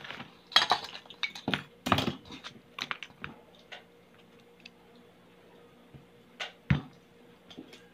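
Knife cutting raw kalabasa squash: irregular sharp clicks and taps, many in the first few seconds, then a few scattered ones.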